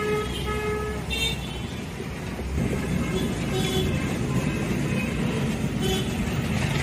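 Busy city road traffic: a steady rumble of engines and tyres, with short vehicle horn honks several times, two close together at the start and more scattered through.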